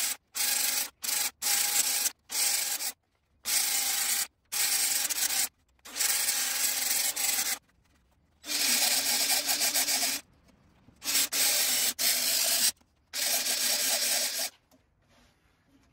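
A flap sanding wheel spun by a drill is grinding against a redbud wood vase on the lathe, a coarse rasping hiss. It comes in about eight short bursts of a second or two, each cut off abruptly.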